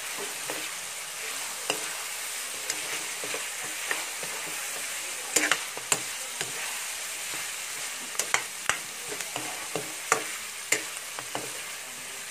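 Diced pork sautéing with garlic and onion, sizzling steadily in a pan while a spatula stirs it, scraping and knocking against the pan. The sharpest knocks come about halfway through, and a run of them comes near the end.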